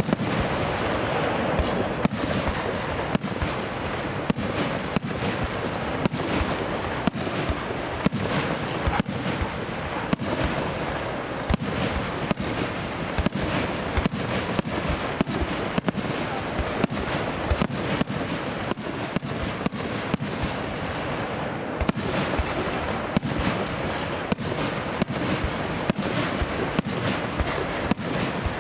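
Fireworks display going off: a rapid barrage of sharp bangs, about one to two a second, over a continuous crackling haze.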